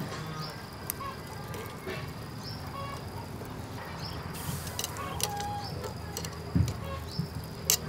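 Metal tongs clicking and tapping against a wire grill grate as pieces of beef kidney are placed on it, with a few sharper clicks near the end. Birds call in the background, a short high call about every two seconds.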